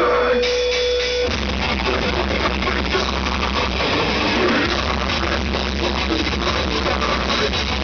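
Melodic death metal band playing live: distorted electric guitars, bass and drums. A single held note sounds at first, then the full band comes in about a second and a half in.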